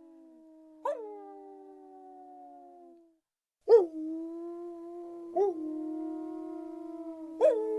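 Wolves howling: long, steady, slightly falling howls, each opening with a short sharp rise in pitch, overlapping one another. There is a brief break about three seconds in, then new howls start.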